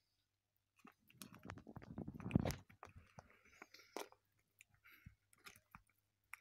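Central American painted wood turtles biting and crunching superworms from a stainless steel bowl, with scattered small clicks and crunches. A louder low scuffing rumble runs from about one second in to about two and a half seconds.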